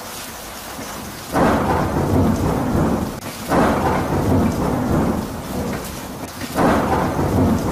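Thunderstorm: rain hissing steadily, with three sudden loud claps of thunder. The first comes about a second and a half in and the others follow at intervals of two to three seconds, each rumbling away over a couple of seconds.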